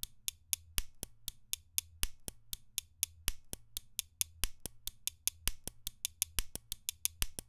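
Sampled pen clicks and snaps played by a MIDI arpeggiator through a sampler as a percussion pattern: short, sharp clicks in an even rhythm, some hits louder than others. The clicks come closer together after a few seconds as the arpeggiator's rate is raised.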